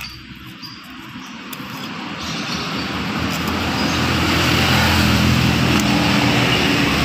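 A motor vehicle's engine nearby, growing louder over the first few seconds and then running steadily loud.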